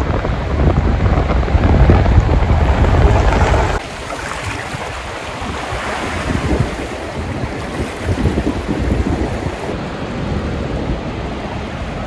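Strong wind buffeting the microphone with a low, gusty rumble. About four seconds in it drops abruptly to a softer, steady rush of wind and water.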